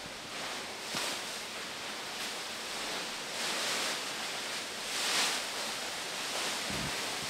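White plastic bags rustling and crinkling in repeated swells as they are handled and brushed against.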